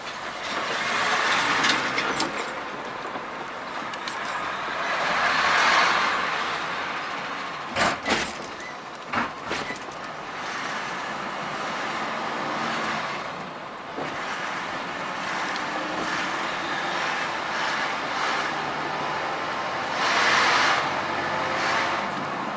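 A truck driving on the road, with steady road and engine noise that swells several times, and a few sharp knocks about eight to ten seconds in, like the vehicle jolting over bumps.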